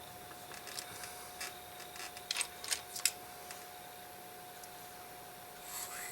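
Light, scattered clicks and taps of small metal watchmaking tools on watch parts, clustered in the first half, with a brief scrape near the end, over a faint steady hum.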